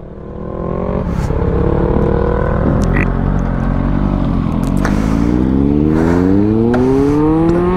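Motorcycle engine running steadily, then revving with a pitch that rises steadily through the second half.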